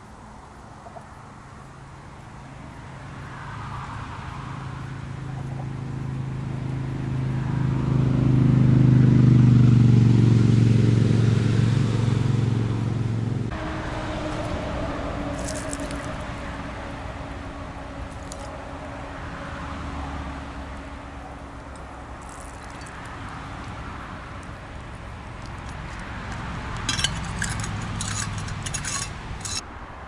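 A motor vehicle's engine hum that swells to a peak and cuts off abruptly a little under halfway through. Near the end comes a quick run of light metallic clicks and jingles.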